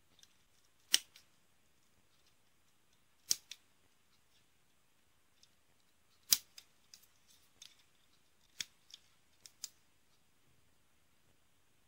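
Hobby side-cutter nippers snipping parts off a grey plastic model-kit sprue: a few sharp, loud snaps a couple of seconds apart, then several softer clicks as the cut-off pieces are trimmed.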